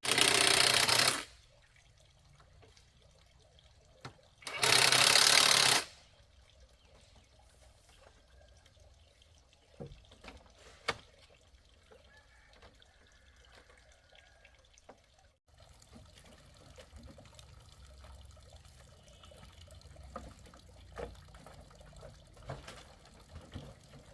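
Water poured out in two short splashes, about four seconds apart, followed by quiet with a few faint clicks.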